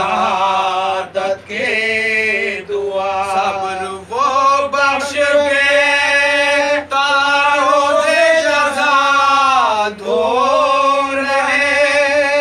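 Men's voices chanting an Urdu Muharram elegy without accompaniment, in long held notes that slide up and down in pitch, with brief breaks between phrases.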